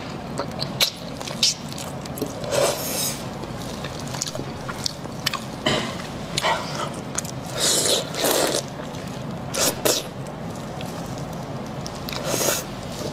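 Close-miked mouth sounds of eating soft, fatty fish in sauce with the fingers: wet slurps, smacks and chewing in short bursts every second or two, with small clicks between.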